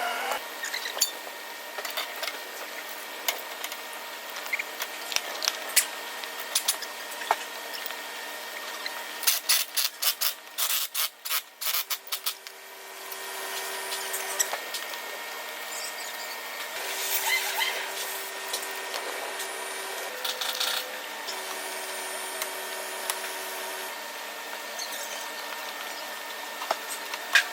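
Hand work on a car body panel: scattered taps and scraping, then a quick run of sharp knocks about ten seconds in, followed by a steadier rubbing noise.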